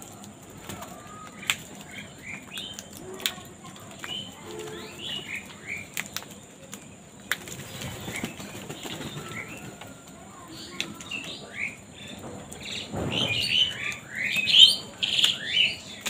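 Wings flapping as house crows take off and land around spread food, mixed with many short bird calls that grow thicker and louder in the last few seconds.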